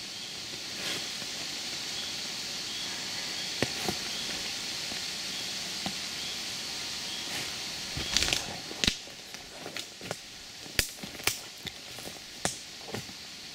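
Footsteps and the light crackle of twigs and leaves on a forest floor, with a cluster of snaps a little past halfway and single ticks after, over a steady faint outdoor hiss.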